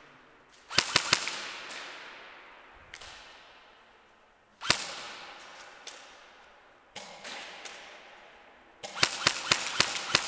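Airsoft guns firing: sharp cracks that echo and fade slowly. There is a quick group of about three cracks about a second in, a single loud crack about halfway through, another about two seconds later, and a rapid string of cracks near the end.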